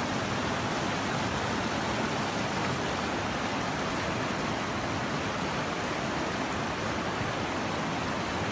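A steady, even rushing noise with no rhythm or tone, unchanging throughout.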